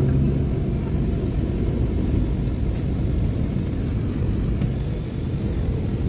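Steady low rumble of a vehicle on the move: engine and road noise while driving.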